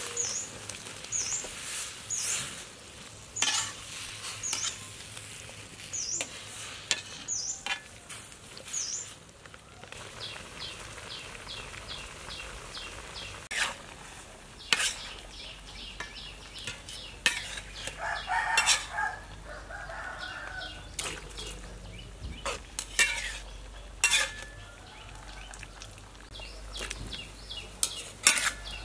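Cauliflower florets tipped into a wok of boiling water, then a metal spatula stirring and knocking against the wok in repeated clinks and scrapes. Birds chirp in short repeated calls through the first part, and a rooster crows about two-thirds of the way through.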